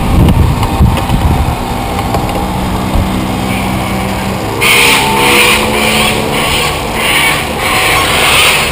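Small engine of a radio-controlled boat running on the water: a steady pitched hum that, about four and a half seconds in, gives way to a louder hissing rush that swells and fades in quick repeated pulses.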